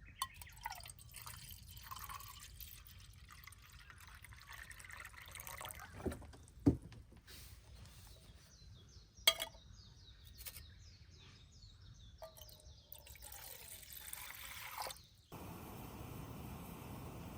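Water being poured and dripping, broken by two sharp knocks of something hard about a third and halfway through. Near the end it cuts off suddenly to a steady hiss.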